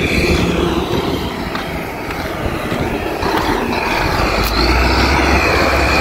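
Diesel engine of heavy road-construction machinery running steadily, its low rumble growing louder about three seconds in.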